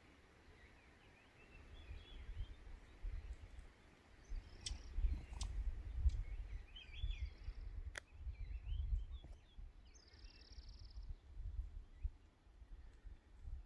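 Small birds chirping and twittering in short calls, over an uneven low rumble that swells and fades. A few sharp clicks are heard around the middle.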